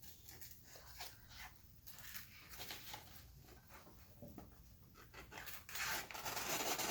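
Faint handling noises of a pocket knife being turned over and felt in the hands: soft rubbing and light ticks, growing louder and denser near the end.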